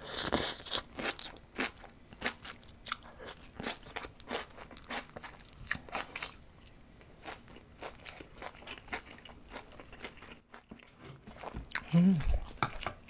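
Close-miked crunching and chewing of seasoned garlic scapes with rice, crisp bites coming several times a second, loudest at the first bite. Near the end there is a short low hum from the eater.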